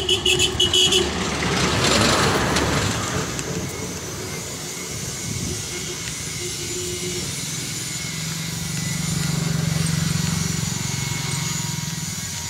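Small motorcycle engines running on the road: a short burst of rapid pulsing beeps at the very start, a vehicle swishing past about two seconds in, then a motorcycle's engine hum swelling and fading again near the end.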